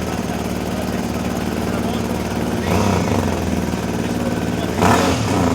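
BMW Concept F 450 GS motorcycle's twin-cylinder engine idling, blipped twice: a small rev about two and a half seconds in and a sharper one near the end.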